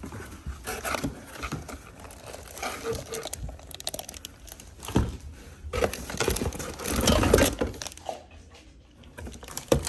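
Plastic packaging crinkling and rustling while boxed mixer-grinder parts are unpacked, with scattered knocks from the parts and cardboard being handled; busiest a little past the middle.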